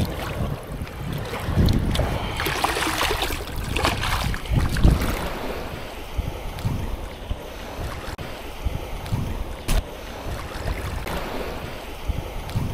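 Wind buffeting the microphone over the wash of surf on the beach, gusting louder in the first few seconds, then settling.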